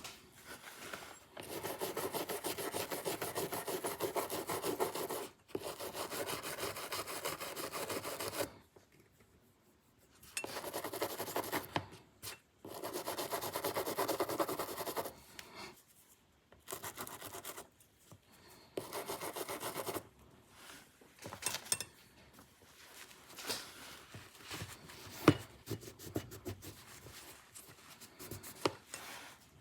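Disassembled folding-knife parts being scrubbed by hand with Hoppe's No. 9 solvent, in several long bouts of rapid rubbing. Near the end the scrubbing gives way to scattered light taps and clicks, one of them sharp.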